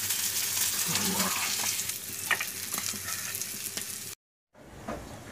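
Fish frying in hot oil in a pan: a steady sizzle with scattered crackles and pops. It cuts off abruptly about four seconds in, leaving only faint background.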